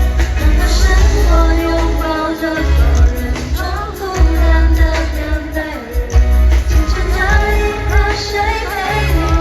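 Live pop dance music played loud over a concert PA: a heavy bass beat with a woman's voice singing the melody.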